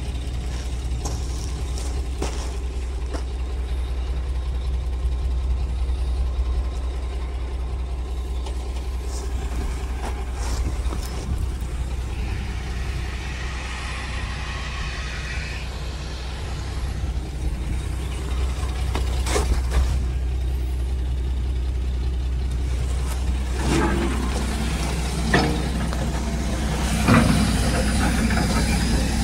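Diesel engine of an XCMG XE135B excavator idling with a steady low hum, with a few knocks near the end.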